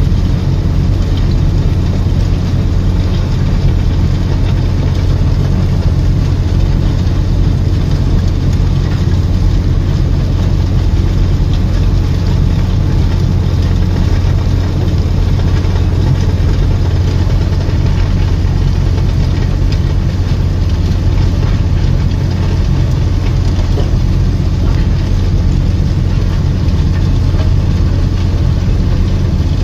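Heavy construction machinery running steadily: a loud, unbroken low drone that keeps the same pitch throughout.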